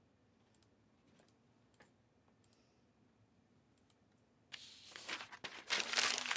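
A few faint clicks, then about four and a half seconds in, loud crinkling and rustling of plastic packaging as sports trading card boxes and packs are handled.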